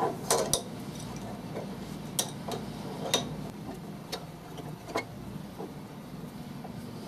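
Irregular light metal clicks and clinks of a three-jaw gear puller as its jaws and screw are fitted and adjusted on an electric motor's rotor shaft, in setting up to pull off a bearing.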